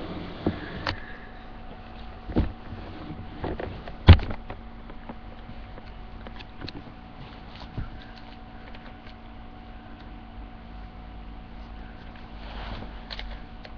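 Scattered knocks and light rustles of something being handled, with one sharp knock about four seconds in, over a steady electrical hum.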